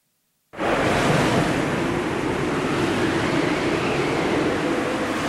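Gale-force wind and heavy breaking seas around a container ship in a storm, a loud steady rushing noise with wind buffeting the microphone, starting suddenly about half a second in. A faint whistle rises and falls in the wind.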